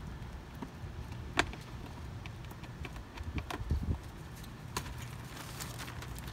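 Scattered light clicks, ticks and scraping from hand work on a house's gable wall, with one sharper click about a second and a half in and a busier patch of ticks and scratching in the second half, over a low steady rumble.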